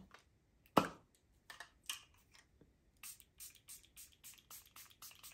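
Charlotte Tilbury Airbrush Flawless Setting Spray's pump bottle misting a face: one stronger spritz about a second in, then a run of quick short spritzes, about three to four a second.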